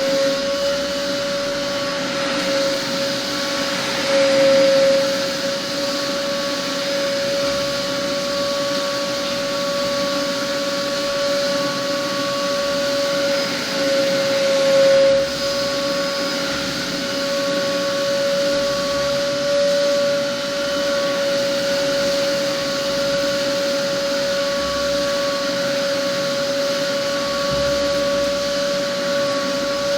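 Homemade cyclone construction vacuum running steadily with a high whine over a rush of air, sucking up sand. Its loudness swells briefly a few times.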